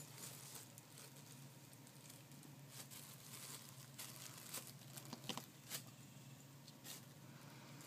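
Near silence: a faint steady room hum with scattered light rustles and ticks.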